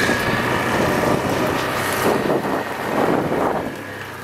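ATV engine running as the quad is driven along, with wind buffeting the microphone.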